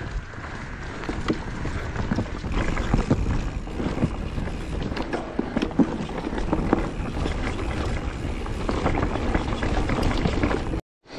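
Mountain bike rolling down a dirt forest singletrack: steady wind on the microphone and tyre rumble, with frequent knocks and rattles from the bike over bumps. The sound cuts out for a moment near the end.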